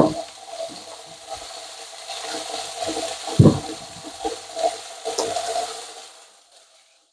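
Raw potatoes set by hand into a stainless-steel pot, landing with a few dull knocks, over the steady hiss of pork ribs frying in a pan. The hiss fades out near the end.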